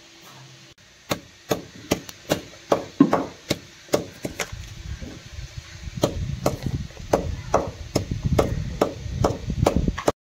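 Cardamom pods and cumin seeds being crushed with a stone: sharp knocks about two or three a second, turning into faster crushing strokes with a gritty rasp about halfway through, cutting off suddenly near the end.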